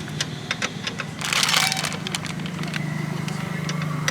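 A motor running steadily with a low hum. Scattered sharp clicks sound over it, and a short burst of hiss comes about a second in.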